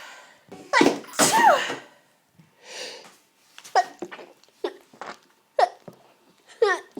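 A woman's sneezing fit set off by ground pepper: two loud sneezes about a second in, then, after a breath, a run of short sneezes about one a second.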